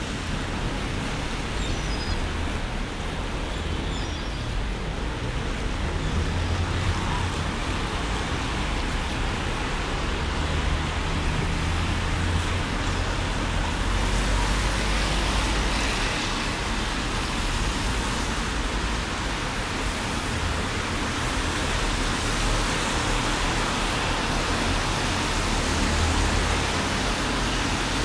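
Heavy rain falling steadily on a city street, an even hiss, with a low rumble of passing traffic that swells and fades several times.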